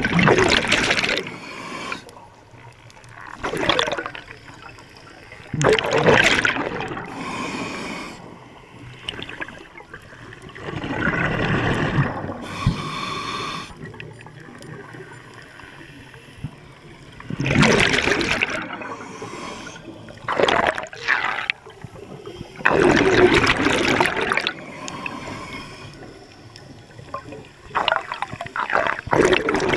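Scuba diver's exhaled air bubbling out of the regulator underwater, in a burst of bubbles every few seconds with quieter gaps between breaths.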